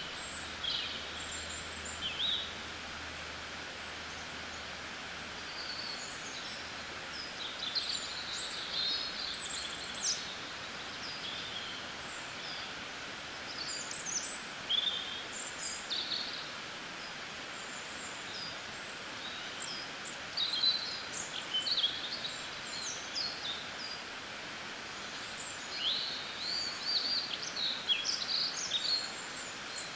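Songbirds chirping and trilling in spring, short high calls coming in clusters, busiest about a third of the way in, around the middle and near the end, over a steady background hiss.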